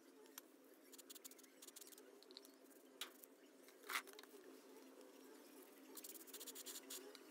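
Faint, near-silent handling of a Makita 4100NB cutter's armature on concrete: a sharp clack about four seconds in as it is picked up, then a short crackling hiss near the end as an aerosol cleaner is sprayed onto it through a straw nozzle, over a faint steady hum.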